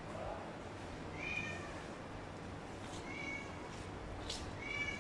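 An animal's short high-pitched cries, three in a row, about a second and a half apart.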